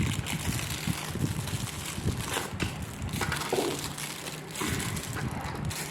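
Plastic packaging crinkling and crackling irregularly as the wrapped parts of a microphone stand are handled.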